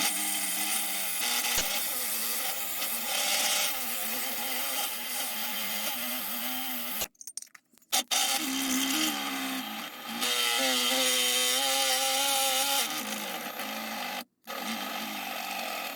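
Homemade battery-powered DeWalt lathe spinning a piece of wood while a hand-held lathe tool scrapes and cuts it: a steady motor whine under a rough scraping noise. The sound cuts out briefly twice, about seven and fourteen seconds in, and after the first break the motor's pitch shifts up and down.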